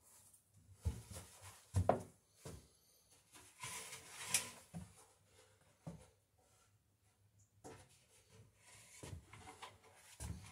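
Wooden plank being handled and laid down: several wood-on-wood knocks in the first two seconds and again near the middle, a scraping rub of wood on wood, then shuffling handling noise near the end.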